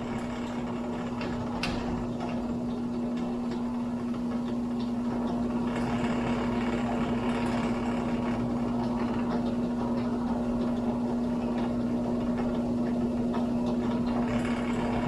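Electric drill running steadily with one strong constant hum, drilling out the heads of the rivets that hold a die-cast toy tractor's casting together.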